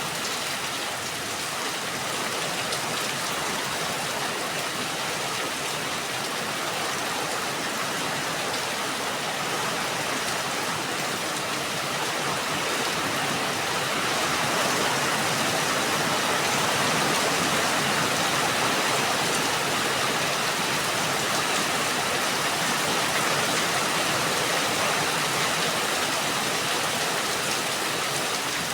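Rain falling steadily: an even hiss that grows a little louder about halfway through.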